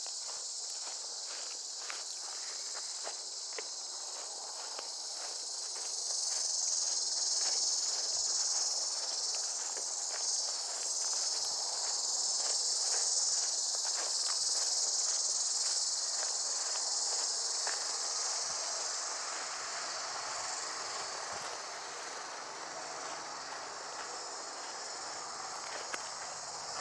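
A steady, high-pitched chorus of insects, swelling a few seconds in and easing off again later. Under it, footsteps at about two a second, which fade out in the later part.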